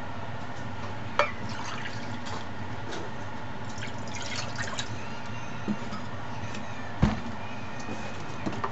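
Liquid poured from a small metal measuring cup into a saucepan, with dripping and light clinks and knocks of metal. A single thump, the loudest sound, about seven seconds in.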